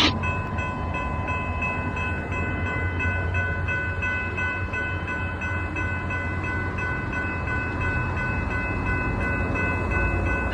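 Train rumbling past, with several steady high tones sounding over the low rumble.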